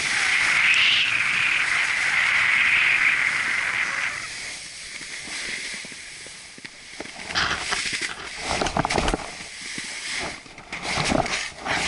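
Snowboard sliding over snow: a steady hiss of the board on the snow that fades after about four seconds, followed near the end by irregular crunching and scraping in the snow as the rider comes to a stop.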